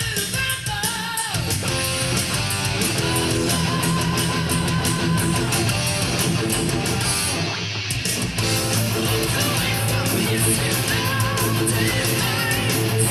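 Distorted electric guitar through a DiMarzio DP100 Super Distortion humbucker playing a heavy metal song part, with wavering, bent notes over a steady low end.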